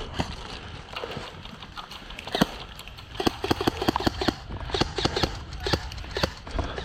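Footsteps of a player moving over rough ground: a string of uneven knocks and scuffs that come quicker and harder from about halfway through.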